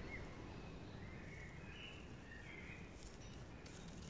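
Quiet outdoor background with a few faint bird calls. Near the end there is a light rustle of dry reed tinder being handled.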